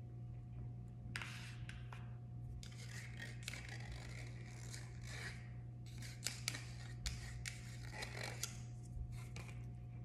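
Plastic fork scraping dressing out of a small plastic sauce cup, in repeated scratchy strokes, with a few sharp taps in the second half.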